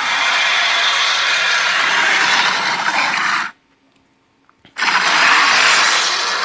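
Dragon roar sound effect: a long, harsh, rasping roar that cuts off sharply about three and a half seconds in, then a second roar starting a second later.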